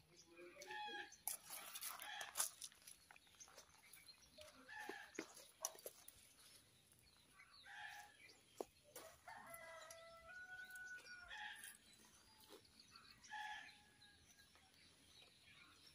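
Faint chickens clucking in short calls, with a rooster crowing once in a longer call about ten seconds in. A few faint clicks are heard in between.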